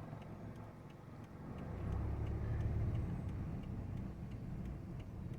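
A car driving past, its low rumble swelling about two seconds in and slowly fading.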